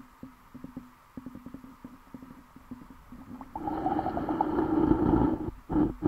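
Muffled sound picked up by a camera under water: light clicks and knocks over a low hum, then a much louder rushing noise about three and a half seconds in, which breaks off briefly near the end.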